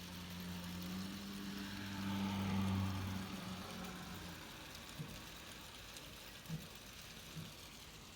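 A motor vehicle passing, its engine hum and tyre hiss swelling to a peak about two to three seconds in and then fading away, over the steady hiss of icy rain. A few sharp single ticks, like hailstones striking, come in the second half.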